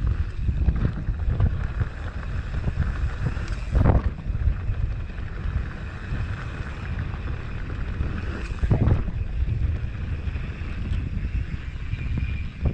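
Mountain bike rolling over a rocky gravel trail: wind buffeting the microphone over the rumble and rattle of tyres and frame, with two louder thumps from bumps about four and nine seconds in.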